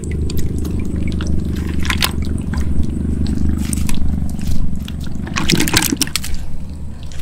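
Water sloshing, splashing and dripping as wet loach traps and the caught pond loaches are handled, with irregular splashes, the strongest a little past the middle. A steady low hum runs underneath.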